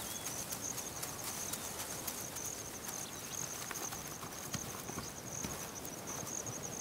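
Steady high-pitched drone of insects in the grass, with irregular light taps and patter scattered through it.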